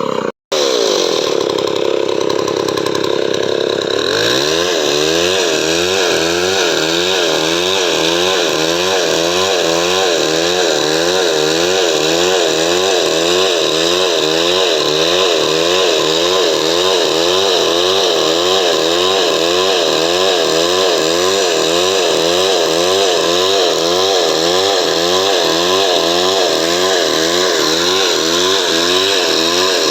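Chainsaw running under load while sawing coconut wood lengthwise into boards, its engine note rising and falling in a regular rhythm about twice a second. There is a short break in the sound about half a second in.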